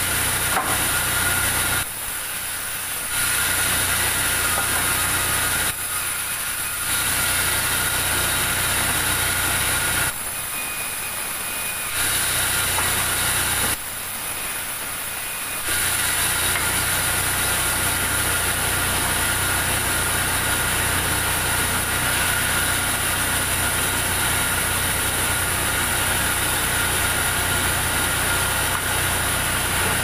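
Large sawmill band saw running, its blade cutting through timber with a steady high whine over a low hum. In the first half the cutting sound drops back briefly four times between passes, then it cuts steadily on.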